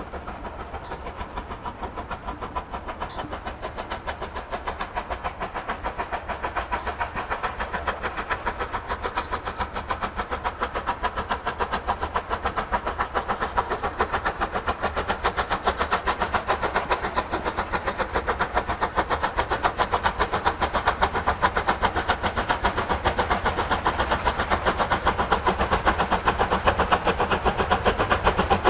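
Bulleid Battle of Britain class Pacific 34059 working a passenger train, its three-cylinder exhaust beating in a fast, even rhythm that grows steadily louder as the locomotive approaches.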